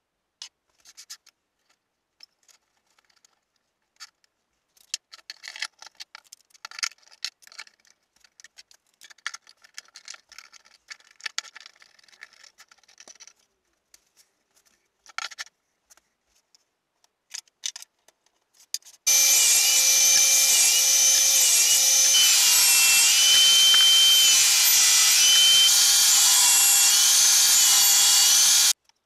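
Scattered light clicks and rubbing as MDF panels and bar clamps are handled, then about two-thirds of the way through a table saw cutting MDF, loud and steady, its whine dipping in pitch several times as the blade takes the load. The saw stops suddenly near the end.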